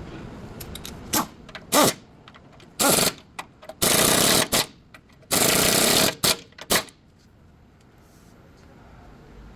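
Impact wrench run in about seven short bursts, the two longest about a second each, on a GMC's stabilizer link during a bush replacement.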